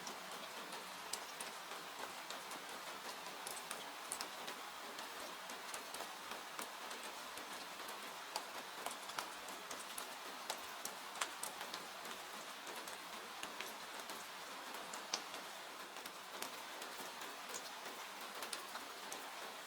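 Steady hiss of rain falling, with irregular sharp crackles and pops of a burning wood fire scattered through it.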